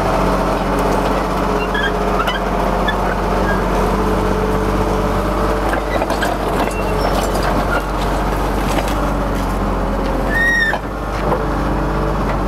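A vehicle engine running steadily while an old rusted crawler shovel is towed by chain on its tracks, with scattered light clanks. A short squeal about ten and a half seconds in.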